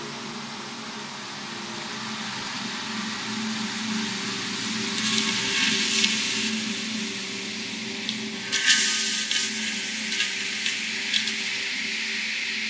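Glass milling and grinding machine working under coolant water: a steady machine hum with hissing spray. The spray swells about five seconds in and starts again sharply about two-thirds of the way through, with a few sharp clicks after it.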